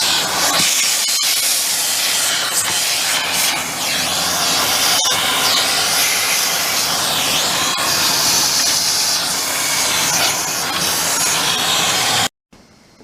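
Loud, steady spraying hiss while a refrigerator's outdoor condensing unit is cleaned; it cuts off suddenly near the end.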